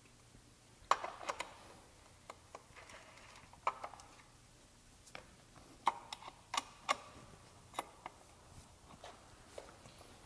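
Scattered sharp clicks and taps of a T-handle wrench working the skid-plate bolts on a dirt bike as they are run in and tightened, coming irregularly, the loudest about a second in and again around six to seven seconds in.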